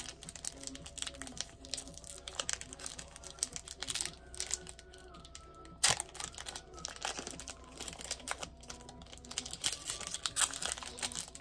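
Foil wrapper of an Upper Deck Series Two hockey card pack crinkling and tearing as it is pulled open by hand, in irregular crackles, with one sharper rip about six seconds in. The pack is hard to open.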